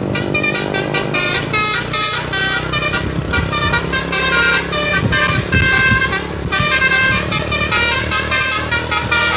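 Tour bus's 'telolet basuri' musical air horn playing a fast tune of short, clipped notes over a steady low rumble.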